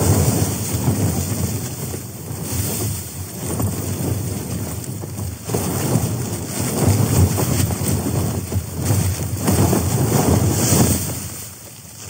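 Strong wind gusting against a tent, the fabric buffeting, with sleet hitting the flysheet, heard from inside the tent. The noise comes in surges and eases near the end.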